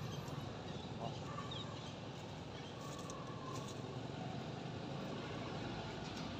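Steady low rumble of background noise, with a few faint short high chirps.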